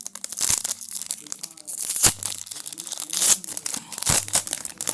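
Foil trading-card pack wrapper being torn open and crinkled, a series of sharp rips and crackles.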